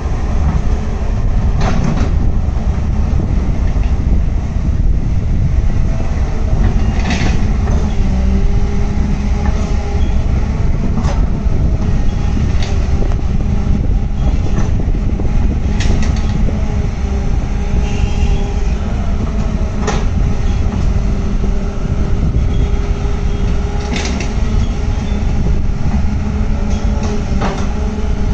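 Hyundai 210 crawler excavator's diesel engine and hydraulics running under load as it digs and swings on a sand heap, a steady heavy rumble with a faint wavering whine, broken by sharp clanks about every four seconds.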